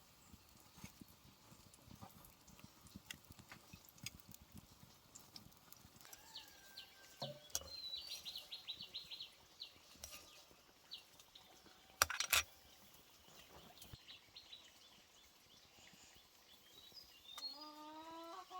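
Farm animal calls: a run of quick high chirps, and a pitched call near the end, among scattered clicks. Two sharp knocks about twelve seconds in are the loudest sounds.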